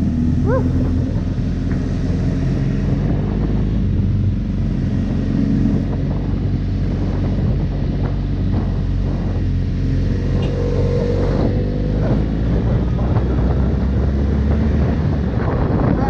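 A motor engine running steadily under wind noise on the microphone.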